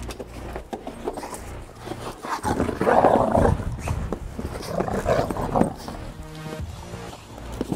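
Dogs play-fighting, a Belgian Malinois and a young male dog wrestling and growling in loud bursts about two and a half and five seconds in. This is rough but normal play, not a real fight.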